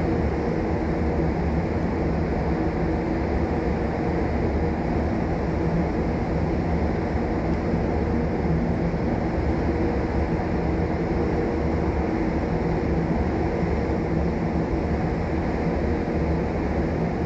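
Steady low machinery rumble with a constant hum, unchanging throughout.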